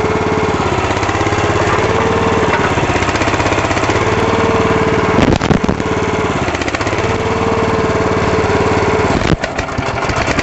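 The Burro walkie forklift's engine runs steadily while its hydraulics work a 3,000 lb pallet at the machine's rated load, the engine note shifting several times as the load comes on and off. There are a couple of sharp clunks, about five seconds in and again near the end.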